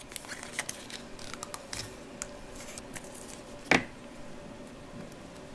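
Hands handling a plastic Play-Doh tub and pulling the modelling clay out: a string of small clicks and light crackles, with one sharper knock nearly four seconds in.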